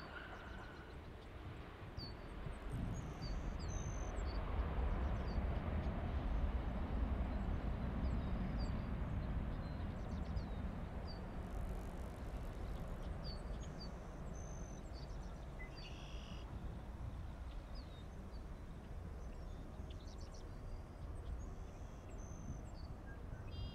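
Airbus A350-900's Rolls-Royce Trent XWB jet engines at go-around thrust as the airliner climbs away, a distant low rumble that swells over the first several seconds and then slowly fades. Birds chirp faintly on and off over it.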